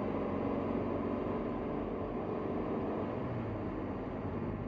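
Steady vehicle engine and road noise heard from inside the cab while driving.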